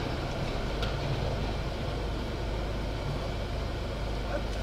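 Steady low rumble of a car and the traffic around it, heard from inside the stopped car's cabin, with no distinct events.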